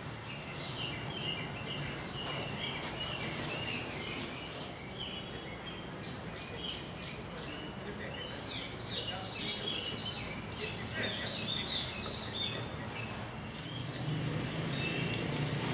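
Birds chirping with many short, quick calls over a steady background hum, with the chirping busiest in the middle of the stretch.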